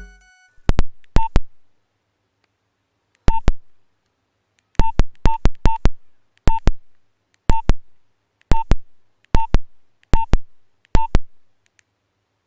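Nokia 1112 keypad tones: about a dozen short, sharp beeps at uneven intervals, as keys are pressed one after another, heard directly from the phone's earphone output. The last note of a built-in ringtone dies away just before the first beep.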